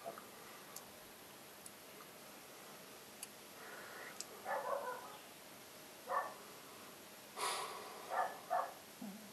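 Dogs barking in short, separate barks with quiet gaps between: a couple of barks about four seconds in, one more a little later, and a run of three or four near the end. These are the neighbours' dogs, which have kept barking for hours.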